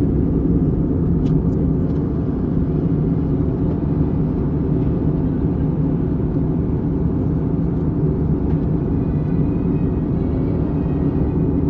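Steady low rumble of an airliner in flight heard from inside the cabin: jet engine and airflow noise.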